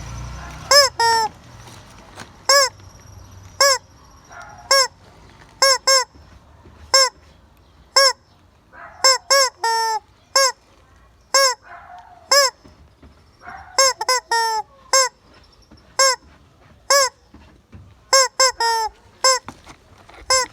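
Chicken calling loudly over and over: short, sharp squawks about once a second, sometimes two or three in quick succession, a few of them trailing off into a longer, lower note.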